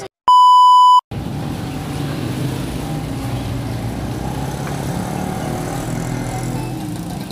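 A loud, steady 1 kHz beep lasting under a second, like an editing bleep tone. It is followed by steady street noise.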